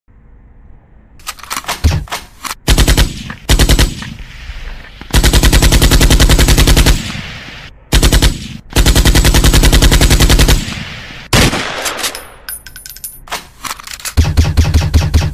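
Rapid automatic gunfire in repeated bursts, the longest running about two seconds near the middle.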